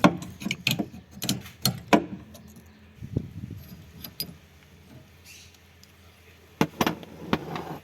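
Metal hand tools, an Allen key and a 19 mm wrench, clicking and clinking against each other and the nut while loosening the nut on a car's rear shock and body mount. There is a quick run of sharp clicks in the first two seconds, a quieter stretch, then a few more knocks near the end.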